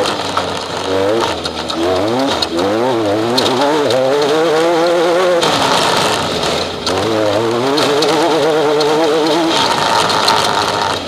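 Off-road race vehicle's engine, heard onboard, revving up and falling back twice as the vehicle drives, its pitch wavering unsteadily, over a constant rattle and road noise.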